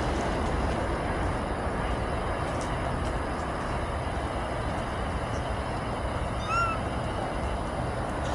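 Steady rumble of jet aircraft noise that slowly eases off, with a single short rising-and-falling animal call about six and a half seconds in.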